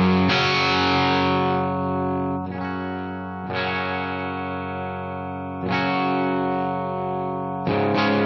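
Electric guitar, a Gibson Flying V played straight into a Scarlett Scout tube amp head (two 6L6 power tubes, three 12AX7 preamp tubes) and heard through a 1972 Hiwatt 4x12 cabinet loaded with Vintage 30 speakers. Chords are struck about five times, each left to ring out.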